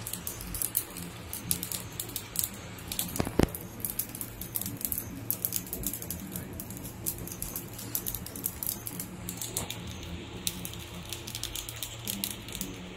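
Havan fire crackling with irregular sharp pops, one louder crack about three and a half seconds in, over a steady low hum.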